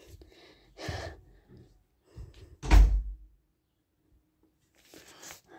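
Thumps: a softer knock about a second in, then a loud, deep thump about three seconds in.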